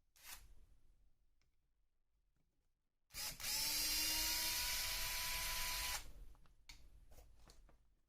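Small electric screwdriver running for about three seconds, then stopping abruptly, while a screw is backed out of the RC car's chassis. Light clicks of small parts being handled come before and after it.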